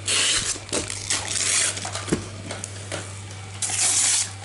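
Gift-wrapping paper being torn off a small present by hand, in several quick rips, the longest near the end.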